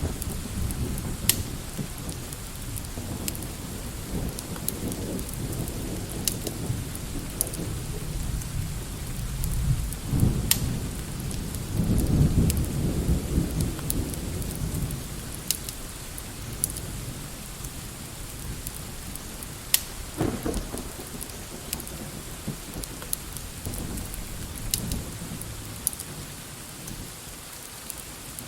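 Steady rain with low rolling thunder that swells about ten seconds in and peaks a few seconds later. Scattered sharp crackles from a fireplace come over it.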